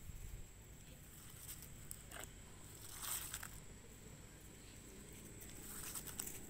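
Faint outdoor ambience: a low rumble with a steady thin high whine, and a few brief soft rustles, the clearest about three seconds in.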